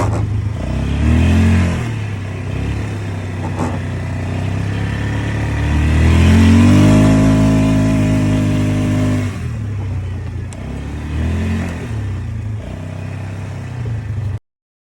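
Freshly rebuilt Polaris Sportsman 500 single-cylinder four-stroke engine running. It is blipped briefly about a second in, then revved up and held for about three seconds before dropping back to idle, with one more short blip near the end.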